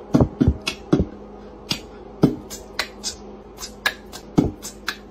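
Sharp, irregular clicks, two or three a second, from a cat's claws tapping on a vinyl tile floor as it walks.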